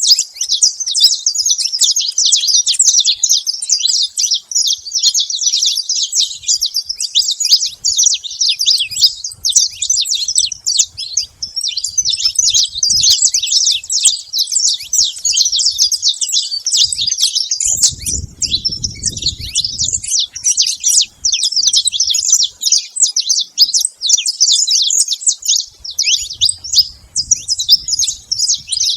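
A flock of saffron finches chirping and calling continuously, many birds at once in a dense, busy chatter. A brief low rumble lasting about two seconds comes in about 18 seconds in.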